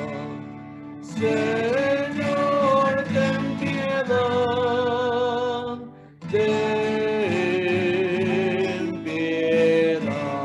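A man singing a slow church song in long held notes, accompanying himself on a strummed acoustic guitar, with a short break about six seconds in.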